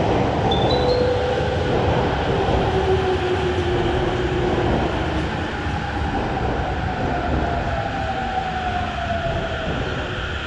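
JR East E231-500 series electric commuter train pulling in and slowing. Wheels rumble on the rails under a traction-motor whine that falls in pitch as it brakes, and the rumble eases off toward the end.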